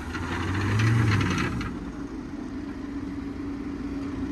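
Mahindra Thar 4x4's engine pulling under load as the vehicle climbs a loose dirt slope. It is loudest about a second in, then settles to a steady run.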